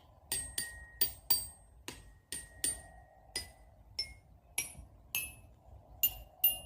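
A child's ringing toy being tapped over and over, about two light strikes a second at an uneven pace, each a short high "ting" at a different pitch.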